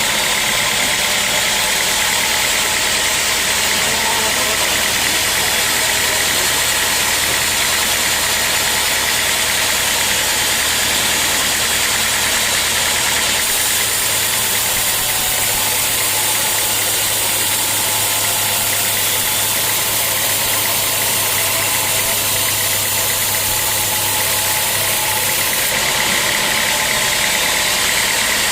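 Sawmill machinery running steadily and loudly, a continuous engine-like drone with a hiss across the whole range; it shifts slightly about halfway through and again near the end.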